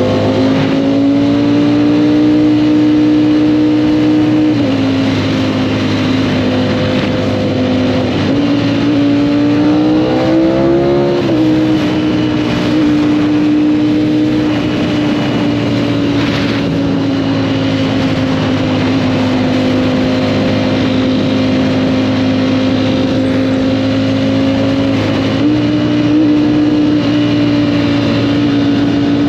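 Motorcycle engine running at steady cruising revs under way, its pitch dipping about four seconds in, climbing a few seconds later and dropping back, then stepping up again near the end, over wind and road noise.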